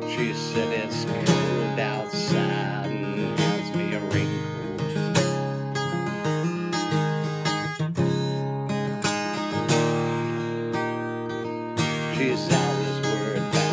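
Acoustic guitar strummed in a steady rhythm, with the chord changing every few seconds.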